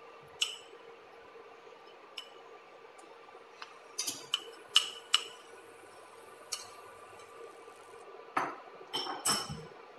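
A spoon clinking against a bowl and the rim of a stainless steel pot as spice mix is tapped out: scattered sharp clinks, several close together around the middle and again near the end, over a faint steady hum.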